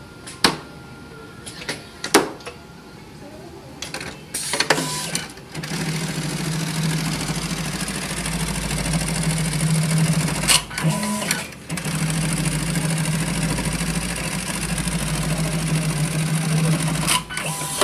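Juki automatic pocket-setting sewing machine stitching a jeans back pocket: a few sharp clicks, then steady stitching from about four seconds in, a brief pause with clicks about ten seconds in, steady stitching again, and clicks as it stops near the end.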